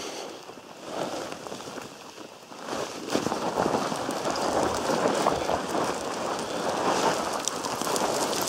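Crinkly plastic rain poncho rustling hard right against the microphone as the wearer walks downhill, with footsteps under it. It gets louder about three seconds in.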